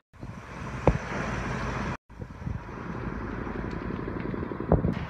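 Steady engine and wind noise of an aircraft filming from the air, heard from on board. The sound cuts off abruptly about two seconds in and resumes the same way, and two brief sharp knocks stand out, one about a second in and one near the end.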